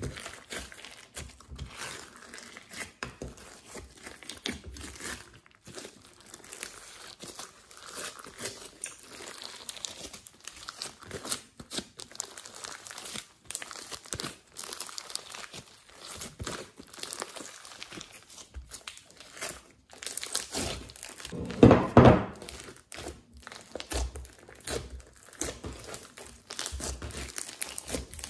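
Hands squishing, stretching and pressing fluffy white slime mixed with sequins and glitter: a steady run of sticky, crackly squishes and small tearing pops. One louder, deeper squish comes about three-quarters of the way through.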